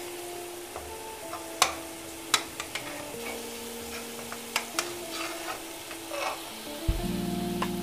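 Masala in oil sizzling in an aluminium pot as a wooden spatula and a slotted steel spoon stir it, with scattered sharp clicks and knocks of the utensils against the pot as boiled trotters go in. A louder low, steady hum joins near the end.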